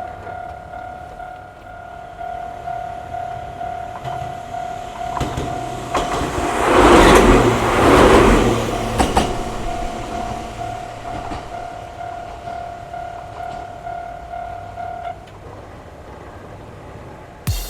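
Japanese level-crossing warning bell ringing in a steady repeated ding, while a Gakunan Railway electric train crosses about 6 to 9 seconds in, a loud rush with clicks of the wheels over the rail joints. The bell stops about 15 seconds in.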